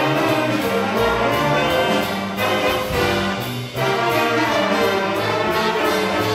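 School jazz band playing live: trumpets, trombones and saxophones over sousaphone, banjo and piano, with a steady beat.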